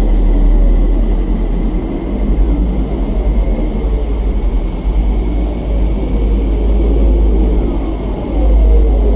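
Sonified 'planet sound' of the kind made from spacecraft radio and plasma-wave recordings: a constant deep rumble under a dense, grainy drone. Swooping tones glide up and down through it, with faint high steady tones above.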